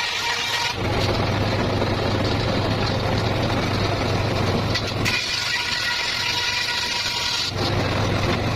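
Circular saw cutting petung bamboo. A high steady whine alternates with a lower, rougher sound about a second in and again near the end, as the blade spins free and then bites into the cane.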